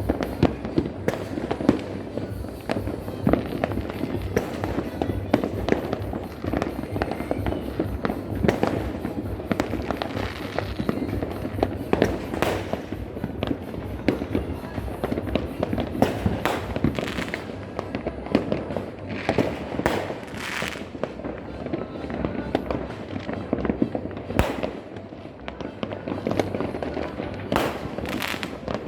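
New Year fireworks and firecrackers going off in a dense, continuous barrage: many overlapping bangs and crackles with no pause.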